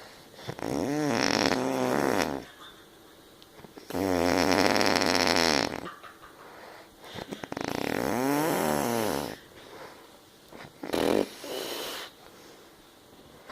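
A person snoring: three long, buzzing snores a few seconds apart, each arching up and then down in pitch, and a shorter one near the end. The snores sound like farts, as if the sleeper is choking on their own throat.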